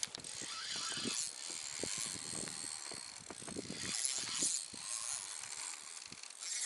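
Spinning reel being cranked, its gears and rotor whirring with a run of small clicks, winding line in against a hooked fish.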